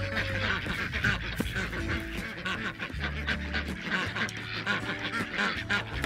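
A flock of domestic ducks quacking and chattering, many short calls overlapping, over soft background music with low held notes.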